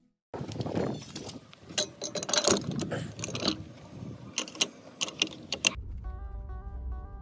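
Mechanical clicking and rattling: an irregular run of sharp clicks and knocks for about five seconds. Music with a steady beat comes in near the end.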